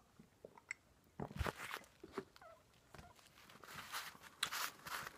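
Biting into and chewing a grilled sandwich: irregular crisp crunches and small clicks, in a cluster about a second in and again near the end.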